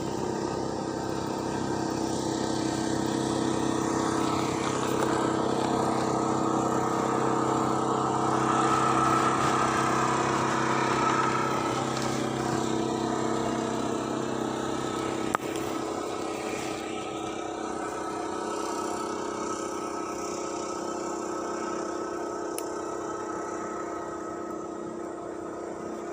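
An engine running steadily, swelling to its loudest about ten seconds in and then slowly fading, as it passes by. A single sharp click about fifteen seconds in.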